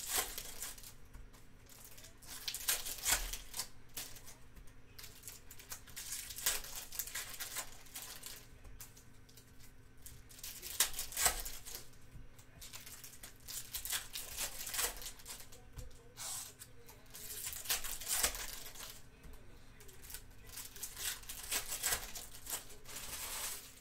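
Crimped foil wrappers of Bowman Baseball hobby card packs being torn open by hand and crinkled, one pack after another, with a sharp rip every few seconds.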